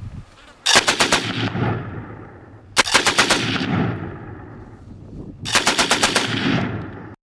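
Automatic gunfire: three short bursts of about half a dozen rapid shots each, a couple of seconds apart, each followed by a rumbling echo.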